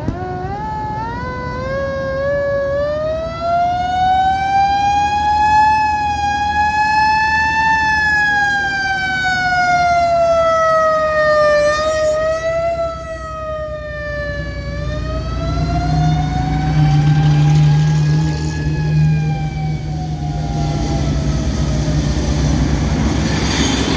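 Siren winding up in pitch and wailing slowly, rising and falling twice, over the low rumble of passing vehicle engines.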